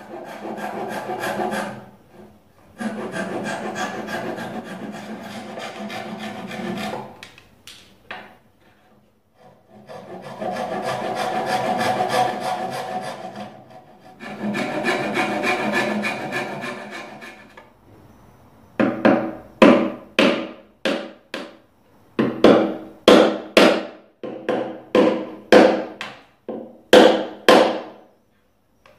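Handsaw cutting wood in four long bouts of strokes. From about two-thirds of the way in, a hammer taps wooden wedges into the Windsor chair's spindle ends: sharp knocks about two a second, with a short pause partway through.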